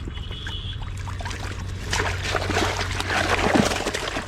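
Water splashing and trickling, louder for about two seconds from the middle, over a steady low rumble.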